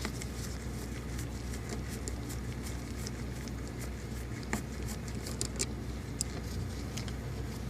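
Light, scattered clicks and ticks of a screwdriver taking out the T15 Torx screw that holds a manual window crank handle, over a steady low hum.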